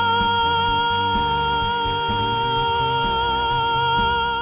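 A singer holds one long, steady high note at the end of a phrase over a backing track, and the note and accompaniment cut off near the end. The note is sung with a tight throat rather than flowing breath, the constricted 'bad' production that the vocal coach is pointing out.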